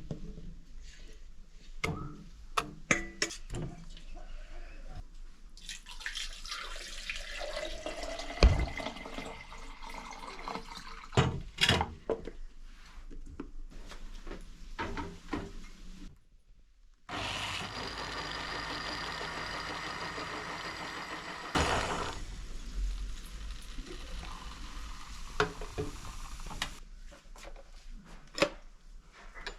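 Kitchen work: water running in spells, as from a tap, among scattered clinks and knocks of pots and utensils. The sound cuts out for about a second near the middle, then the hiss resumes.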